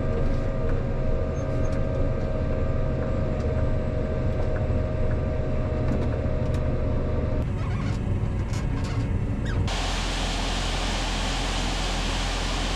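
Tractor running steadily while planting, a low drone with a thin steady whine on top that drops out about seven seconds in. About ten seconds in, the sound switches abruptly to a steady, even hiss-like rush.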